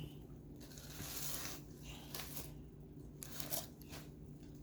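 Packaging from a gift box rustling and crinkling in several short bouts as it is handled and rummaged through.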